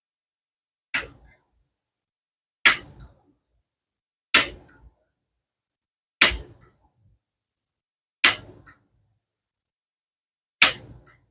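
Six air rifle shots, about two seconds apart, each a sharp crack with a short tail.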